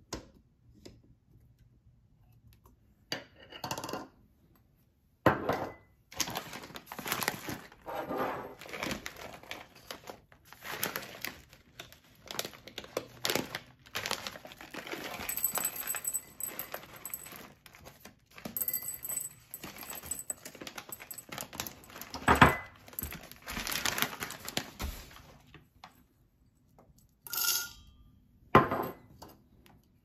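Crinkling of a foil coffee-bean bag being opened and handled, on and off, with whole coffee beans rattling into the stainless-steel bowl of a DR MILLS DM-7452 blade coffee grinder. A few short clatters of the grinder's plastic parts and lid come near the end.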